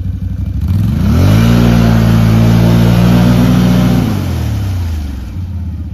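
Can-Am Outlander ATV engine idling, then revved up hard about a second in, held high for roughly three seconds and let back down to idle, as the rider tries to drive out of mud where the machine is stuck.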